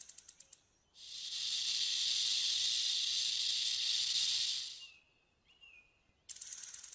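Snake sound: a rapid rattling buzz fading out, then one long steady hiss of about four seconds, with the rattling buzz starting again near the end.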